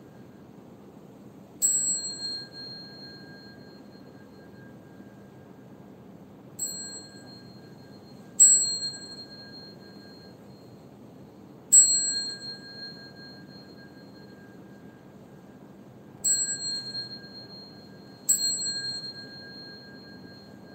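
A small high-pitched metal bell is struck six times at uneven intervals, each strike ringing clearly and then fading over a second or two. The second strike is softer than the rest.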